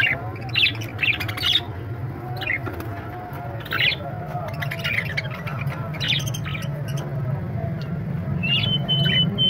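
Caged birds chirping and squawking in short, repeated calls over a steady low hum. Near the end a thin, steady whistle starts.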